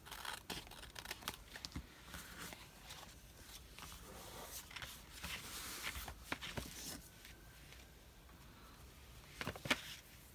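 Paper being handled and rustled on a desk, with scattered light taps and a couple of sharper clicks near the end.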